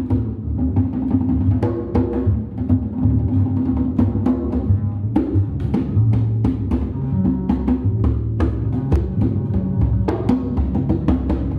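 Free-improvised duo of double bass and drums: low bass notes shifting in pitch under a dense, irregular scatter of sharp percussion strikes.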